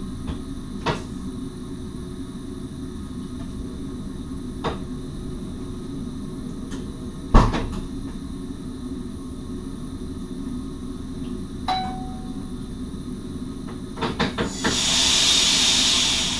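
Cab of an NS SGMM Sprinter electric train standing still: a steady low hum with scattered clicks and knocks, the loudest about halfway through. Near the end come a few quick clicks, then a hiss lasting about a second and a half.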